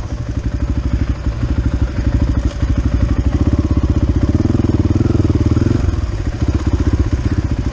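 An engine running with a fast, even pulse, fullest in the middle and easing a little near the end.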